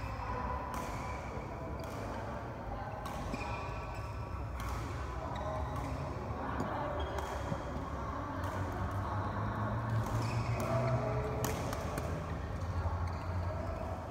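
Badminton racket strokes on a feather shuttlecock during a doubles rally: sharp, irregularly spaced hits over a steady background hum, with the odd shoe scuff on the court floor.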